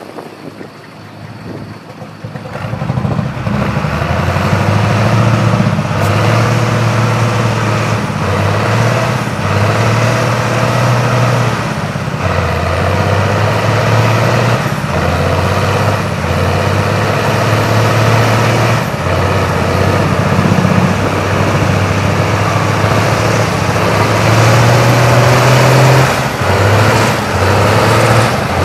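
Diesel engine of a red International Harvester four-wheel-drive tractor working hard through deep mud, its revs rising and falling again and again. It grows loud about three seconds in and stays loud.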